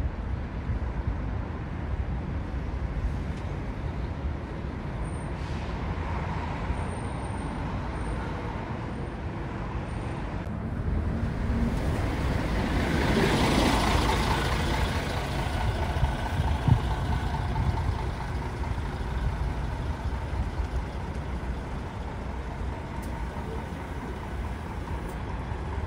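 Diesel coach buses running at a bus terminal, a steady low rumble, with a louder rushing hiss that swells and fades about halfway through.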